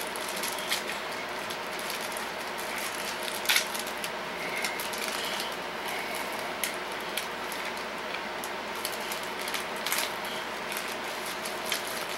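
Scattered clicks and taps of a plastic switch plate and its screws being handled and fitted over a dimmer switch, with one sharper click about a third of the way in, over a steady background hiss.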